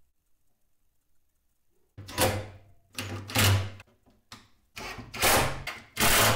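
Cordless drill driving screws in a run of short bursts, about five or six, starting about two seconds in, fixing a metal drawer slide to the cabinet's side panel.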